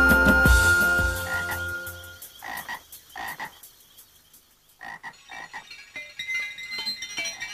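Frogs croaking in short separate calls, some in quick pairs, after background music with a low drone fades out over the first two seconds.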